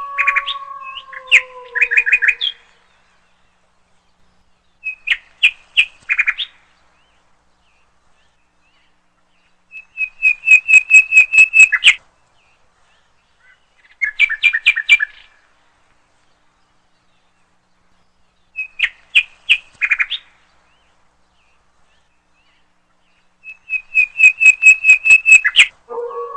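A songbird singing six short phrases of rapid repeated high notes, each one to two seconds long, about every four to five seconds. At the start a wolf's howl is trailing off, sliding down slightly in pitch, and it ends about two seconds in.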